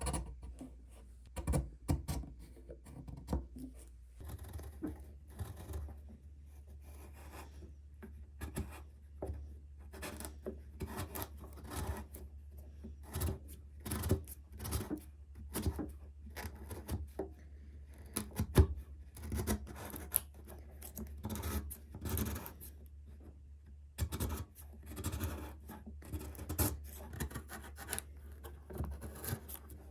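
Hand tools working wood: irregular short scrapes and light taps, the sound of chisel or blade paring and fitting a joint by hand.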